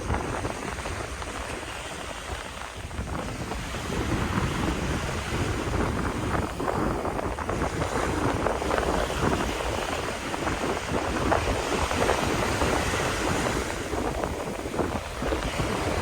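Strong, gusty wind buffeting the microphone over the sound of sea waves.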